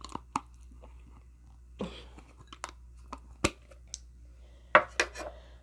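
Close-miked chewing of food, with scattered sharp crunches and wet mouth clicks.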